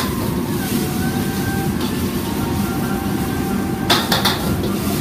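Commercial gas wok burner running with a steady low rush while food sizzles in the wok. About four seconds in, a quick run of metal clanks from a steel ladle striking the wok.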